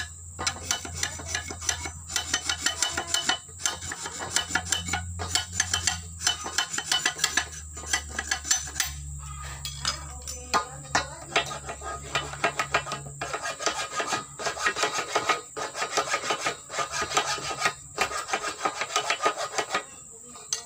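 A knife blade scraping and shaving a wooden plug on the end of a metal pipe: runs of rapid, short scraping strokes broken by brief pauses, as the wood is pared thinner to fit inside the next pipe section.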